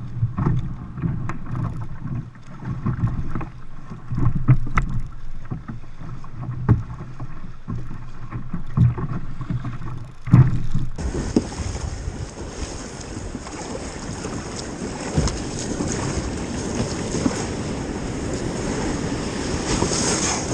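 Kayak paddling through shallow water from the beach: water sloshing against the hull and wind on the microphone, with scattered knocks. About halfway in this gives way abruptly to a steady rush of breaking surf and spray around the kayak as it paddles out through the waves.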